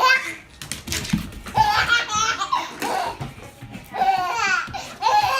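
A baby laughing in several high-pitched squealing bursts, with background music.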